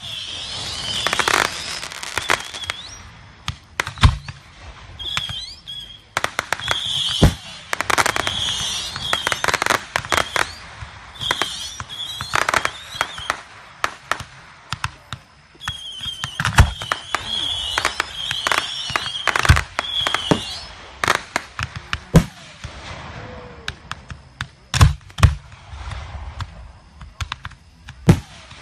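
Aerial fireworks launching and bursting, a long irregular run of sharp bangs and crackles.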